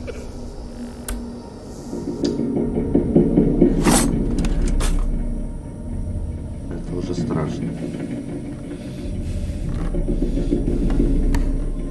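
Footsteps and someone laughing in a horror film soundtrack, the laugh coming in long rough swells, with a few sharp knocks between them.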